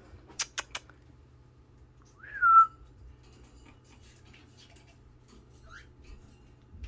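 A single loud whistled note about two seconds in, rising then dropping to a briefly held lower pitch, after three sharp clicks; a faint short chirp follows near the end.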